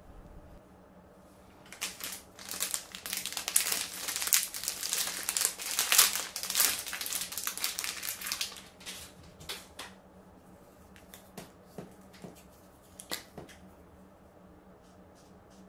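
Crinkling and tearing of the plastic packaging of a new felt-tip marker as it is opened by hand, a dense run of crackles lasting several seconds. Scattered sharp clicks and taps follow as the marker is handled.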